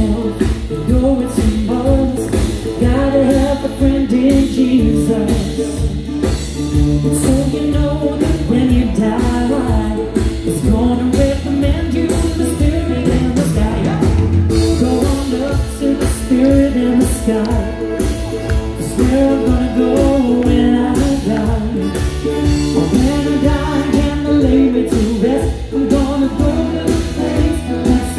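Male pop singer performing live with a band: lead vocal over a steady drum beat and bass.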